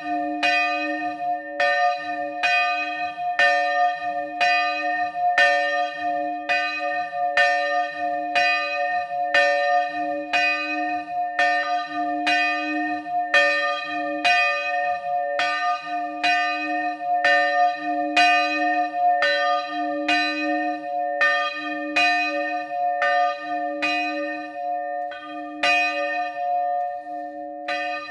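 A bronze church bell cast by the De Poli foundry, the middle bell of a three-bell set, swinging electrically in the Friulian style and struck by its clapper in quick, regular strokes. Its hum and partials ring on between the strokes.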